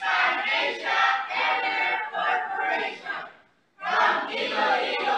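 A group of people's voices raised together in short phrases, breaking off to silence about three and a half seconds in, then starting again.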